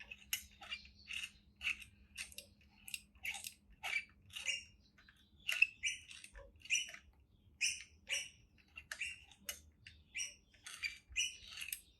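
Small birds chirping over and over, short high chirps a few times a second, over a faint steady hum that fades out within the first few seconds.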